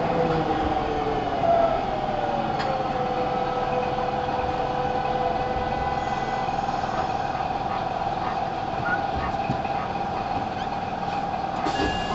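Running sound of a Nagoya Municipal Subway 5050 series train in its original, unrefurbished form: a steady rumble and hiss of the train in motion, with electric drive tones that fall in pitch over the first few seconds and then hold steady.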